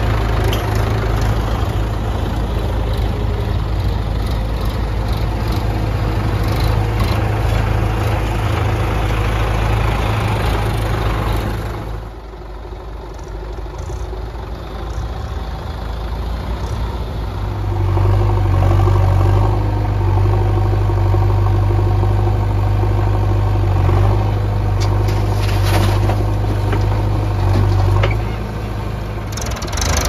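Diesel tractor engines running steadily at idle, close up. About twelve seconds in the sound drops to a quieter engine hum; from about eighteen seconds a louder, steady diesel engine runs again, easing off near the end.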